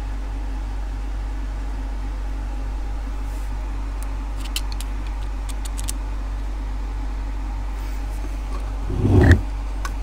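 Steady low hum in the background, with a few faint light clicks of a small screwdriver working at the plastic sensor housing on the end of a removed washing machine motor. About nine seconds in comes a louder knock and rustle as the motor is handled and turned over.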